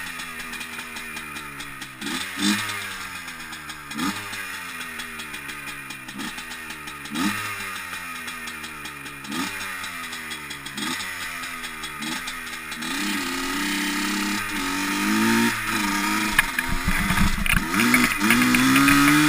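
Yamaha Blaster ATV's two-stroke single-cylinder engine, blipped again and again, the revs rising and falling every second or two. About two-thirds in it is held at higher revs and gets louder, pulling across the snow.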